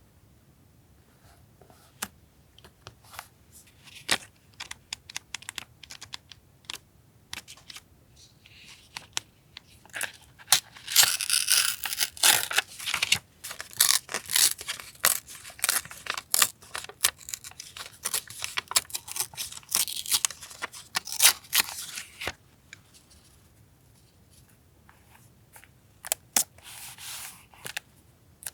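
Paper being handled and torn: scattered light taps and rustles, then a long stretch of dense tearing and rustling from about ten seconds in until about twenty-two seconds, and another short burst near the end.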